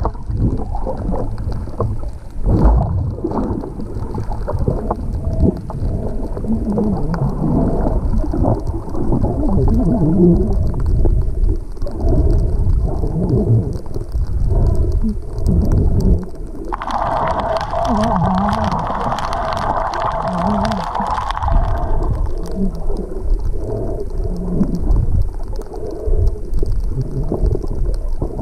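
Muffled underwater rumble and sloshing from a submerged camera moving through the water. About two-thirds of the way through, a steady higher hiss comes in for about five seconds and then stops.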